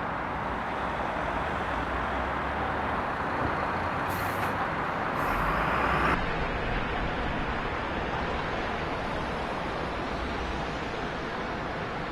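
Steady rushing air noise of a Leister Variant T1 hot-air welding machine running, with two short, louder hisses about four and five seconds in.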